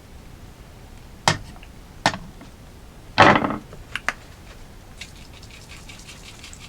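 A utensil knocking and clicking against the Hamilton Beach egg cooker's ring and plate, with one longer scrape, while the egg yolk is broken. From about five seconds in come faint, quick scratching strokes as the egg is stirred.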